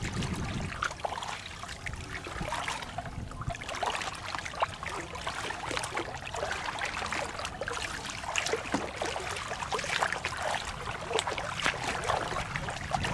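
Footsteps wading through shallow floodwater and wet grass, with irregular splashing and sloshing at each step.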